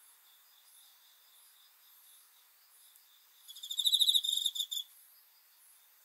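A cricket gives one loud, fast-pulsed chirping trill lasting about a second and a half, starting about three and a half seconds in and stopping abruptly. Fainter, steady high chirping sounds in the background.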